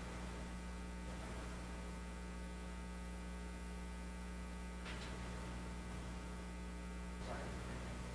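Steady electrical hum on an idle audio line, with two faint brief noises about five and seven seconds in.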